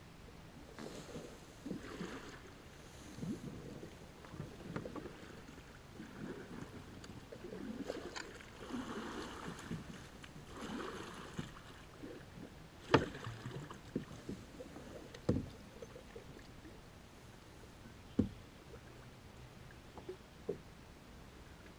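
Quiet handling sounds in a plastic kayak: faint rustling and light water noise, broken by a few sharp knocks in the second half, the loudest about two-thirds of the way through.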